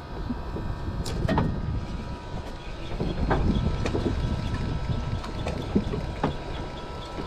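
Wind buffeting the microphone on a small fishing boat at sea, with a low rumbling wash and several sharp knocks.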